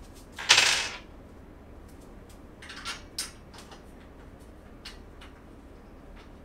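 Steel dresser-frame parts and bolts being handled during assembly: a loud scrape about half a second in, a smaller scraping rattle around three seconds in, then a few light clicks.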